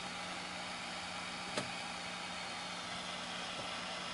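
Steady room hiss with a low electrical hum, and a single sharp click about a second and a half in.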